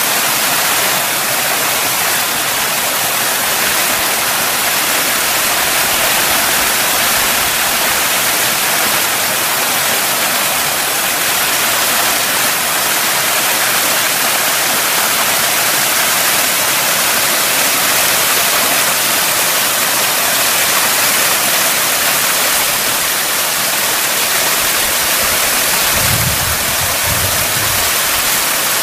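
Small mountain waterfall pouring over rock into a pool: a steady rush of falling water, with a few low bumps near the end.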